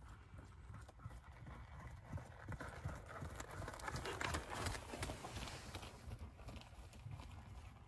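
Horse's hoofbeats on a soft arena surface, growing loudest about four seconds in as the horse passes close by, then fading as it moves away.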